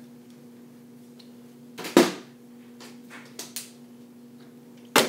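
Partly filled plastic water bottle being flipped and hitting a hard surface with a loud thud about two seconds in, then a couple of light knocks, and another loud thud near the end.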